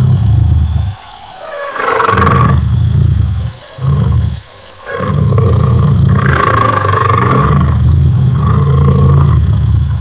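Lion roaring: a string of long, deep roars with short breaks about one, three and a half and four and a half seconds in, the last roar held about five seconds.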